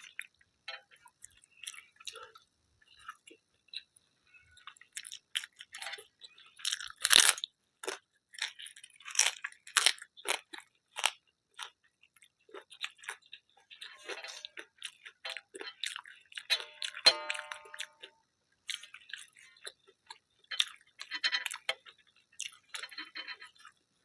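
Close-miked eating sounds: chewing with sharp, crackly crunches of crisp papad being bitten. The loudest crunches come about seven and nine seconds in.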